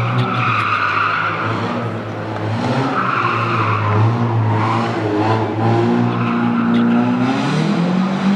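Race car engine running hard with tyres squealing and skidding through the slalom course's tight bends; the engine note rises near the end.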